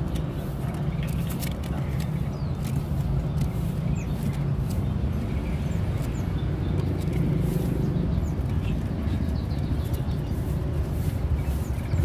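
Steady low rumble of street traffic, with occasional short, faint bird chirps.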